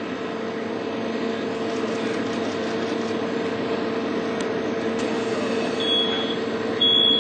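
Steady engine drone with a constant low hum, from the fire truck running to supply water to the sprinkler pipe. Near the end a smoke alarm starts sounding, two high beeps about a second apart.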